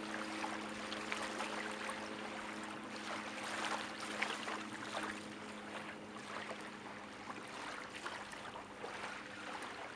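Small waves lapping and washing on the beach at high tide, with irregular splashing surges. A low steady hum underneath fades away about halfway through.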